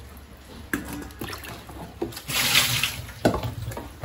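Water splashing and sloshing as bitter gourds are rubbed and rinsed by hand in a plastic tub of water. There is a louder splash about halfway through and a sharp knock shortly after.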